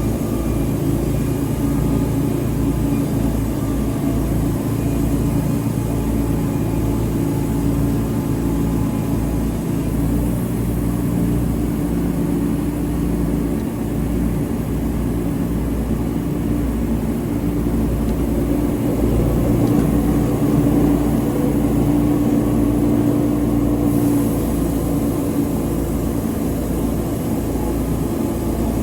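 Wood-Mizer band sawmill's engine running steadily under load, with no break for the whole stretch.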